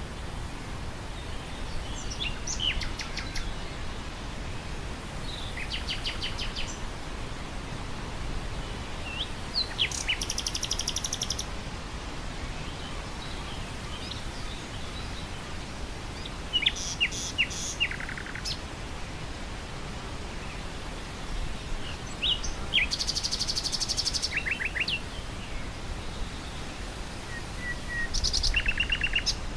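Nightingale singing in separate phrases of rapid repeated notes and trills, six phrases with pauses of a few seconds between them, over steady wind blowing through grass.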